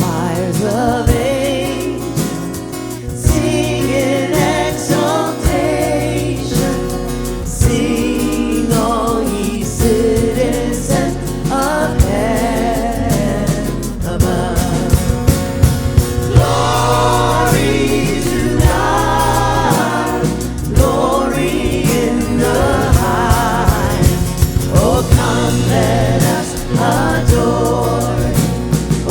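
Gospel-style worship music: several singers holding wavering notes over the band's steady chords and a light beat.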